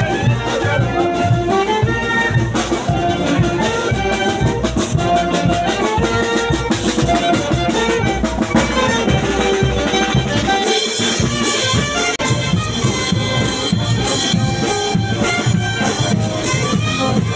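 Live brass band with drums playing a festival tune, trumpets and other brass carrying the melody over a steady beat.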